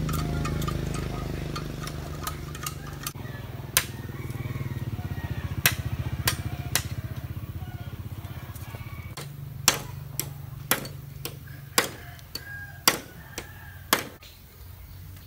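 Sharp knocks of a blade chopping into a green bamboo pole, about a dozen at uneven intervals. Under them a small engine drones steadily, fading near the end.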